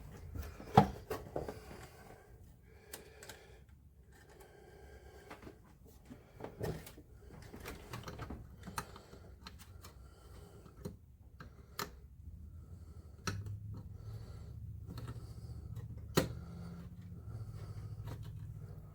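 Small plastic parts of a monitor's joystick assembly being handled and fitted by hand: irregular clicks and taps, with sharp knocks about a second in, midway and near the end. A faint low hum comes in about two-thirds of the way through.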